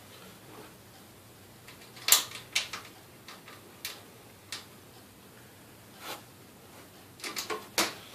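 Scattered light clicks and knocks of screws and a screwdriver handled against a desktop computer's metal case, with a quick cluster of them near the end.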